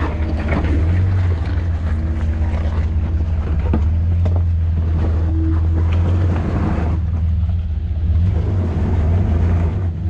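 Jeep engine running low and steady as it crawls over a rock obstacle, with a few sharp clicks.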